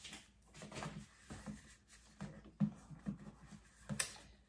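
Floetrol pouring from its plastic jug into a plastic measuring cup, glugging in an irregular run of short low pulses as air gets back into the jug, with a couple of sharper clicks.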